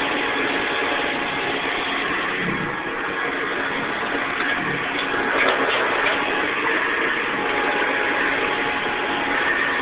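Hoover Convertible upright vacuum cleaner (model U4007) running steadily, its motor and fan giving an even whirring hiss.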